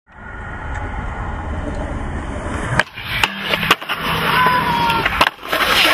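Skateboard wheels rolling over concrete, a steady rumble, broken by a few sharp clacks of the board from about three seconds in.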